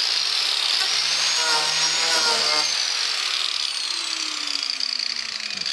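Angle grinder fitted with a Graff Speedcutter saw-chain wood disc cutting a narrow groove straight through a pine board, running with a steady high whine. A lower tone slowly falls over the last couple of seconds.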